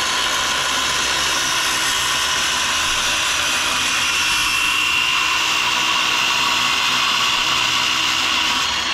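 Circular saw running steadily with a high whine as it cuts a shelf board to length, cutting off sharply near the end.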